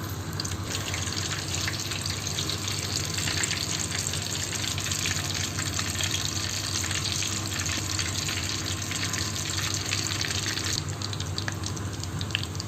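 Butter melting and sizzling in hot oil in a frying pan: a steady hiss that swells about half a second in and eases a little near the end.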